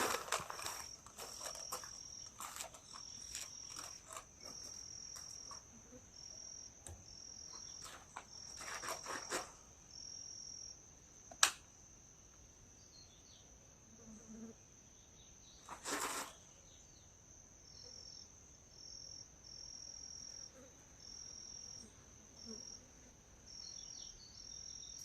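Crickets singing: a high, steady trill that switches on and off in trains of about a second. A single sharp crack cuts through about eleven and a half seconds in, and a short rushing burst about sixteen seconds in.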